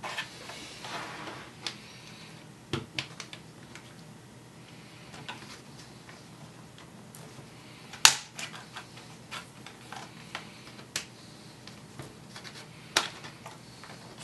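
Plastic screen bezel of a Dell Latitude 3540 laptop being pried off with a pry tool: scattered sharp clicks and snaps as its clips come loose, the loudest about eight seconds in and another near thirteen seconds. There is a brief rustle at the start.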